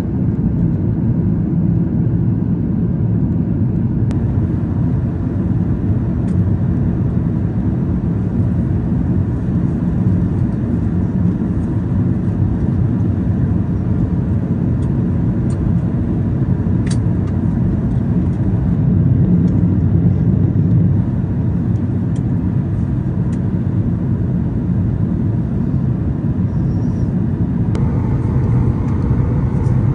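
Steady low roar of a jet airliner's cabin in flight, from the wing-mounted turbofan engines and rushing air. It turns a little brighter near the end.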